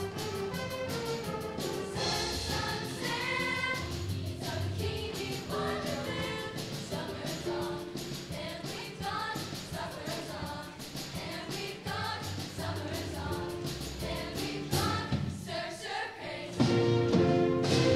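Youth show choir singing an upbeat number in unison over an accompaniment with a steady beat, swelling louder shortly before the end.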